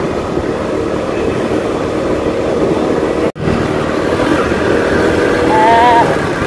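Motorcycle engine running steadily while riding, with wind rushing over the microphone. The sound drops out for an instant about halfway through.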